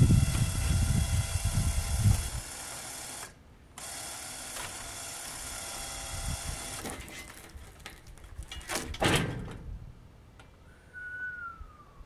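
A winch runs steadily as a large log is dragged up steel ramps onto a sawmill bed. There are heavy low thuds in the first two seconds and a loud scraping knock about nine seconds in, then a short falling squeak near the end.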